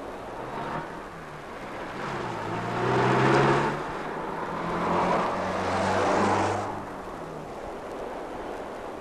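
Motor vehicles driving past with engine and road noise, swelling up twice: loudest about three seconds in, then again from about five to six and a half seconds in, before fading.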